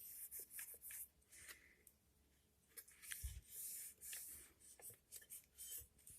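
Faint scratchy rubbing and light clicks from hands handling a small, dusty antique toy sewing machine, with a soft low thump about three seconds in.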